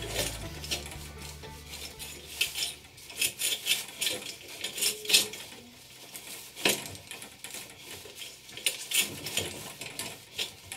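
A homemade jib furler being worked as the sail is rolled up and let out again: sail cloth rustling, line rubbing on the drum, and metal fittings clinking, in a string of irregular short clicks and scrapes.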